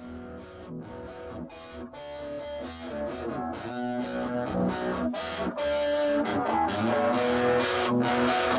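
Background music with distorted electric guitar over regular percussion hits, growing steadily louder.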